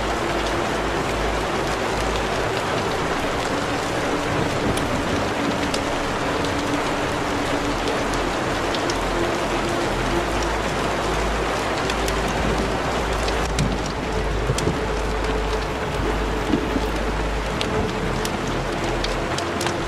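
Steady rain noise with scattered sharp droplet ticks, over a faint held low tone.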